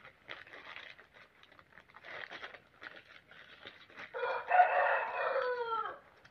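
A rooster crowing once, a call of about two seconds starting about four seconds in and dropping in pitch at the end. Before it, faint rustling of packaging being handled.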